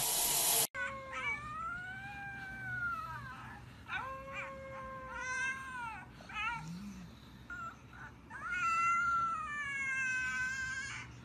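Pug whining in a series of long cries that rise and fall in pitch, with a short wavering one around six seconds in and the longest near the end. A brief hiss cuts off under a second in.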